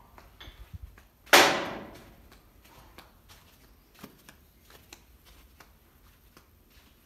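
A single loud, sharp bang about a second in that dies away over most of a second, followed by a few faint knocks and clicks.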